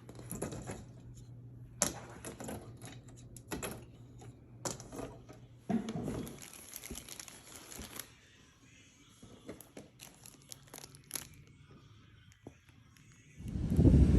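Packaging being handled and torn open: crinkling, tearing and many sharp clicks and taps. It thins to scattered clicks after about eight seconds, and wind noise on the microphone comes up near the end.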